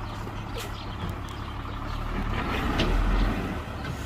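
Heavy diesel earthmoving machinery running steadily, swelling briefly about three seconds in, with a few light clicks over it.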